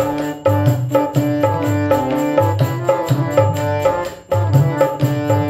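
Dholak, a two-headed barrel drum, played by hand in a lively folk rhythm with bending bass strokes, over steady held melodic notes, with a short break about four seconds in.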